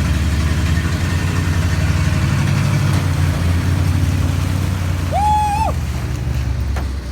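Pickup truck engine running steadily under load while a stuck truck is towed out of a hole, easing off near the end. A brief high-pitched sound cuts in about five seconds in.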